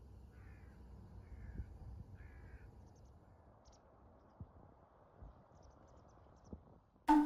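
A crow cawing three times in quick succession over a steady low rumble of wind. Just before the end, a single loud musical note.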